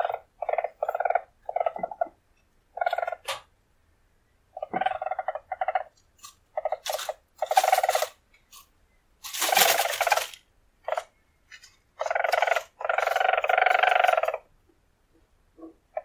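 Weasel purring: a string of short trilling calls in uneven bursts with pauses between. A harsher burst comes about two-thirds of the way in, and a longer call of about a second and a half comes near the end.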